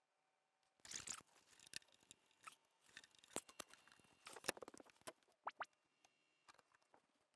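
Faint, irregular scratchy bursts and a few short rising chirps from Anthem ARC Genesis room-correction test sweeps played through the speakers. They start about a second in, between runs of quick, evenly spaced rising chirps.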